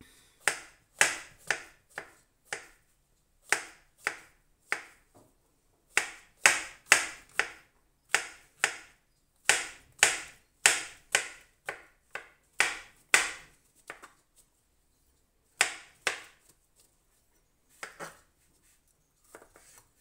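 Chef's knife cutting button mushrooms on a plastic cutting board: sharp, irregular knocks of the blade against the board, often in quick runs of several, with short pauses between and fewer strikes in the last few seconds.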